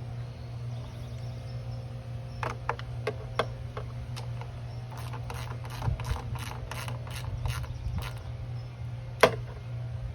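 Ratchet wrench clicking while acorn nuts are run down on a motorcycle top-box base plate. A few scattered clicks come first, then an even run of about three clicks a second, and one sharper click near the end, over a steady low hum.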